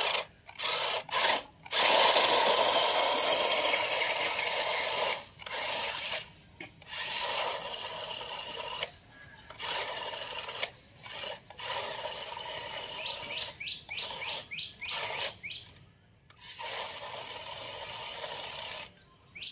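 Toy RC rock crawler's small electric drive motor and gears whirring as it drives over loose dried corn kernels, with the kernels rattling and shifting under its tyres. It comes in bursts of throttle with short pauses between them.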